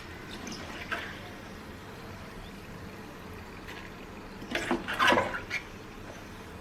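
Hot frying oil sizzling with a steady hiss, with a brief cluster of clicks and knocks about four and a half seconds in.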